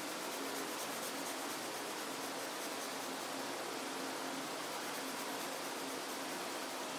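Colored pencil shading on paper: a steady, scratchy hiss of back-and-forth strokes.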